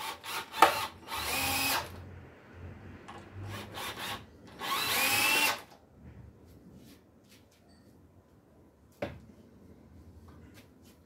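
Cordless drill running into the wooden bench seat in two short bursts of about a second each, the second rising in pitch as the motor spins up, with a few clicks before them and a single sharp knock later on.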